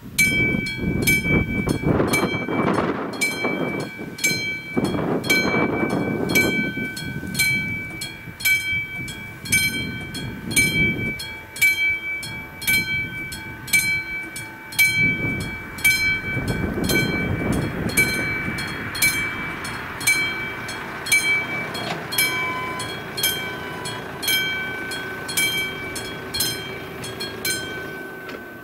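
Classic mechanical level-crossing bell ringing with even strokes, about one and a half a second, as the crossing's warning starts up. Swells of low rushing noise come and go beneath it, loudest in the first few seconds.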